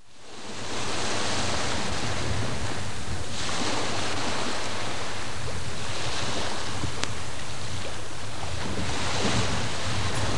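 Steady rushing of sea waves, with wind rumbling on the microphone, fading in over the first second. A single sharp click comes about seven seconds in.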